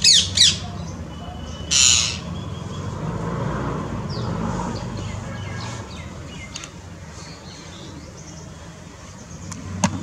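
Rose-ringed parakeets squawking: three loud, harsh calls in the first two seconds, over a low steady background rumble. A single sharp click near the end.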